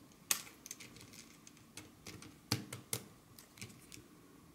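Irregular small plastic clicks and taps as press-fit LCD mounts are pushed by hand into a 3D-printed plastic case, with a few sharper clicks among fainter ticks.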